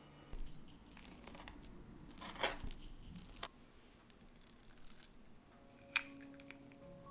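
Rustling and tearing in several short bursts over the first three and a half seconds, then a single sharp click about six seconds in.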